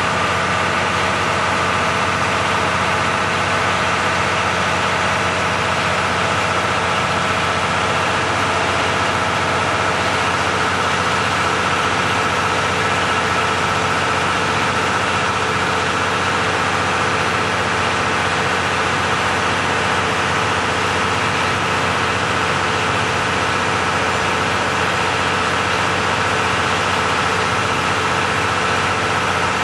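KiHa 181 series diesel railcar's 12-cylinder DML30 diesel engines idling steadily while the train stands at the platform.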